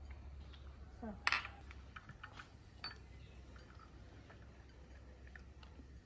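Glass tea glass and china saucers clinking as tea is served: one sharp clink about a second in, then a few lighter clinks, one with a brief high ring.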